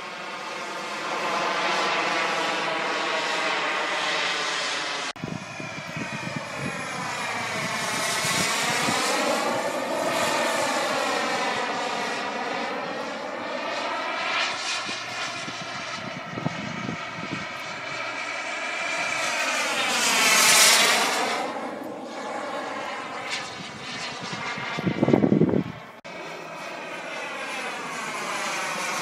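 JetCat P140RX model turbine engine of an RC jet flying past, a steady whine and rush that swells and fades with the plane's passes, loudest about two-thirds of the way in. A brief, loud low rumble breaks in about four seconds before the end.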